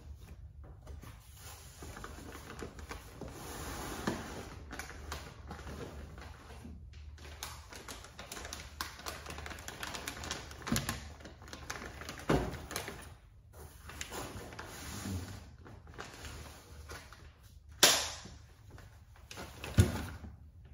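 Plastic packaging bags crinkling and rustling while wrapped grille pieces are handled and lifted out of a cardboard shipping box, with scattered small taps and knocks. Two sharp knocks stand out near the end.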